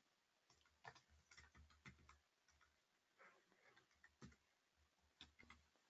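Faint, scattered keyboard key clicks as a password is typed, a few separate taps spread over several seconds against near silence.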